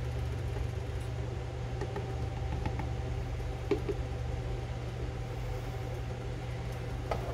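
Steady low hum of a running air fryer's fan, with a couple of faint clicks of a spoon against a saucepan, one in the middle and one near the end.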